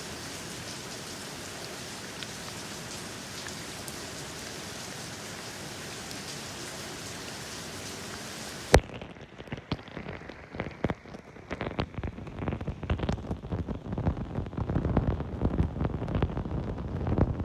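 Steady rain falling, an even hiss of drops, that cuts off abruptly with a click about nine seconds in. It gives way to a different sound of irregular beats that grow louder toward the end.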